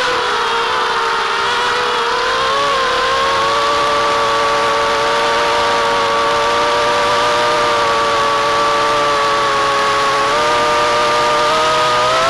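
FPV racing quadcopter's brushless motors (Titan 2204 2300 kV) and propellers in flight, a steady multi-tone whine that dips and rises together in pitch as the throttle changes.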